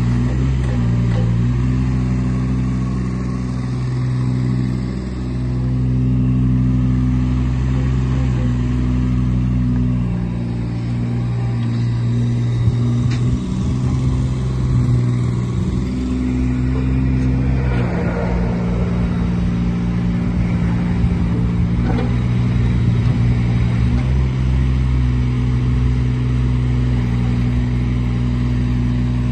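Kubota KX018-4 mini excavator's three-cylinder diesel engine running steadily while the boom, slew and tracks are worked, its note dipping and recovering several times.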